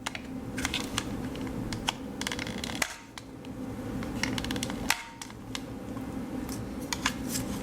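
Hard plastic clicking and scraping as the corner of a remote control's battery-compartment lid is worked in as a pry tool, in irregular small clicks over a low steady hum.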